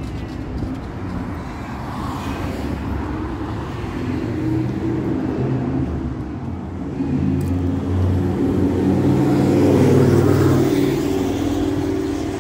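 Road traffic on the street alongside: car engines and tyres as vehicles pass, growing louder to a peak about ten seconds in and easing off near the end.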